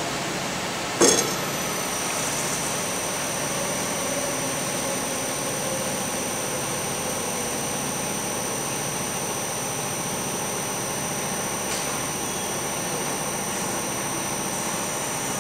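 Industrial paint-bucket filling machine running with a steady mechanical hum. A single sharp clunk comes about a second in, and right after it a steady high whine sets in and holds.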